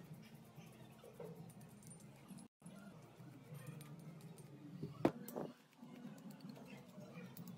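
Faint scratching of a toothbrush scrubbing the steel slide of a Glock 19 Gen 5 pistol to loosen dirt and debris, with a sharp click about five seconds in.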